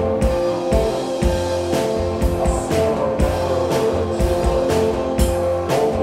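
Rock band playing live: electric guitars and bass guitar over a drum kit, the drums hitting on a steady beat about twice a second. An instrumental stretch with no singing.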